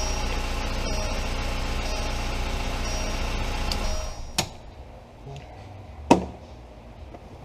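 2004 VW New Beetle's four-cylinder engine idling steadily, then stopping about four seconds in, followed by two sharp clicks.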